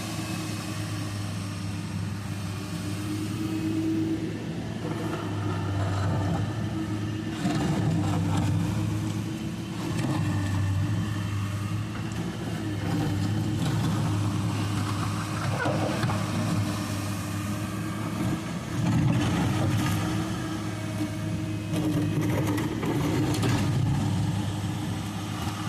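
Excavator's diesel engine running steadily with a droning hum that swells and eases as the hydraulics take load, with a few brief knocks and scrapes from the bucket working the soil.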